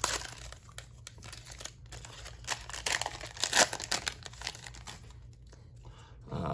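Plastic trading card pack wrapper being torn open and crinkled in the hands: irregular crackling and tearing rustles that thin out after about four and a half seconds.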